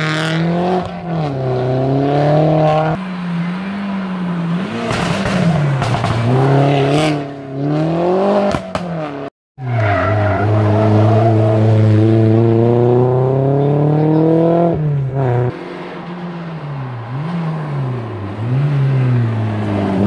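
Rally car engines working through hairpin bends: revs rise and fall with each brake, downshift and throttle blip, breaking off at gear changes. After a brief cut about nine seconds in, a car holds a long, loud, slowly rising rev out of the bend. Near fifteen seconds it drops off and goes back to short up-and-down blips.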